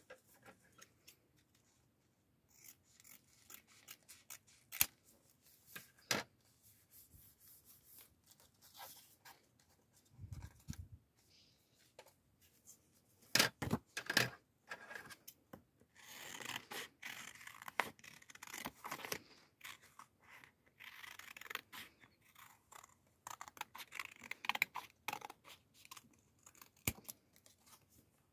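Glossy photo-paper cutouts and a photo card handled on a journal page: crisp rustling, scraping and small clicks in short irregular bursts.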